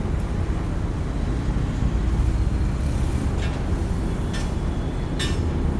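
Excavator engine running steadily with a low rumble, with three short sharp knocks in the second half.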